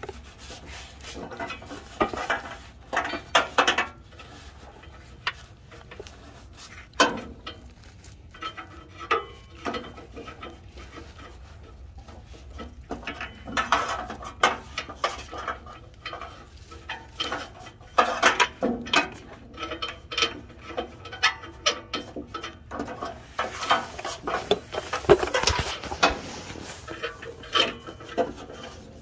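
Irregular metallic clicks, clinks and scrapes of hand tools working an oxygen sensor loose from a car's exhaust pipe, busiest about three quarters of the way through.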